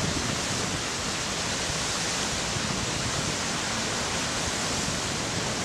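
Steady, even rushing hiss with no tones or rhythm.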